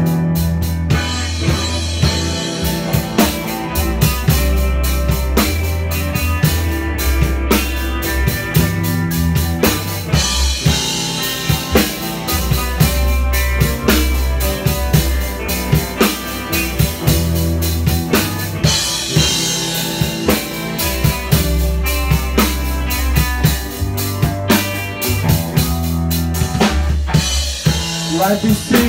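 Rock band playing live together: a Mapex drum kit played with a steady, busy beat of kick, snare and cymbals, over electric guitars and a low bass line that shifts every couple of seconds.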